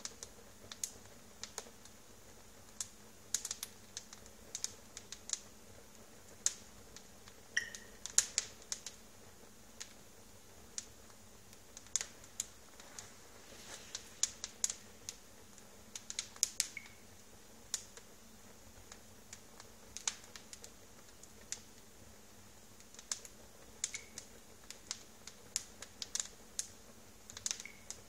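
Wood logs burning on a fireplace grate, crackling in sharp, irregular snaps over a quiet background.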